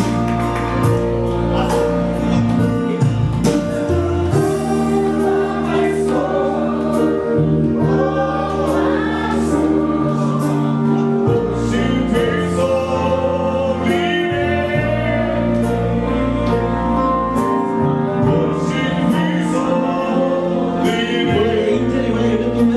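Gospel worship music: a group of voices singing over sustained keyboard chords and bass notes that change every few seconds.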